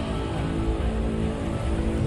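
Background music with sustained tones, laid over a steady rush of floodwater.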